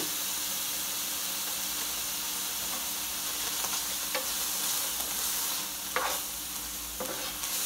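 Ground beef sizzling steadily as it browns in an electric skillet, nearly cooked through. A spoon stirs and scrapes against the pan a few times in the second half.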